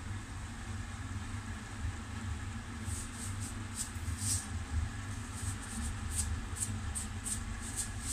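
A frying pan of tofu and kangkong in sauce sizzling on a hot cooktop over a steady low hum. Short, sharp crackles begin about three seconds in and come roughly twice a second.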